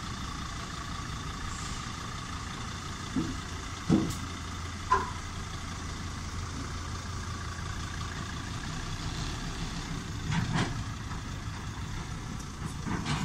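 Engine of a Mercedes-based Rapido motorhome running steadily as the vehicle creeps slowly forward, a low hum with a few short knocks about three to five seconds in.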